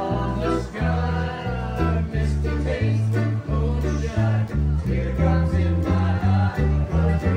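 A live country-style band playing: a man singing into a microphone over an electric guitar, with low bass notes stepping along steadily underneath.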